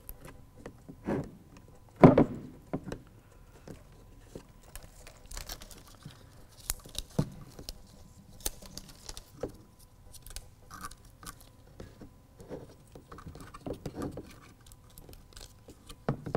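Handling noises as butyl tape sealer is unrolled and pressed into the channel of a plastic tail light housing: scattered light taps, clicks and rustling of the tape and its paper backing, with a louder knock about two seconds in.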